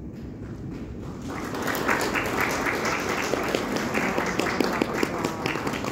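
Audience applauding, starting thinly and swelling into dense clapping about a second in.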